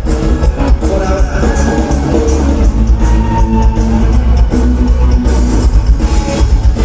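Loud live rock music: guitar over a heavy bass low end, with regular drum hits.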